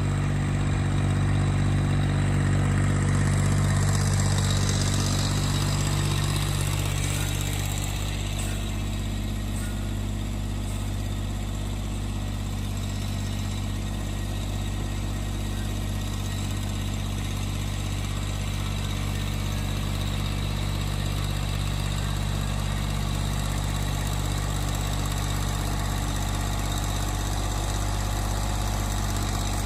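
Massey Ferguson GC1723E compact tractor's three-cylinder diesel engine idling steadily, a little louder for the first several seconds.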